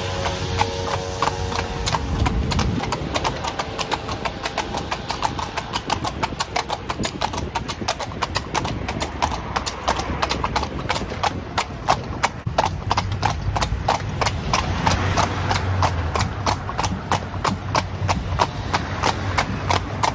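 Horse's hooves clip-clopping on an asphalt street as it pulls a carriage, a steady, even rhythm of sharp strikes.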